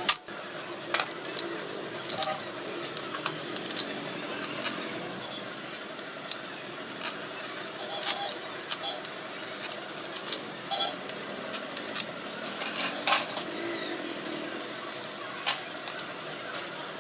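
Metal engine parts and hand tools clinking and tapping against each other during motorcycle engine assembly: a dozen or so short, sharp ringing clicks at irregular intervals over a steady background hiss.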